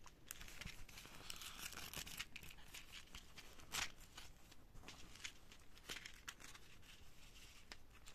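Faint crinkling and rustling of a small plastic packet of decorative seashells being handled before pouring, with scattered sharp clicks.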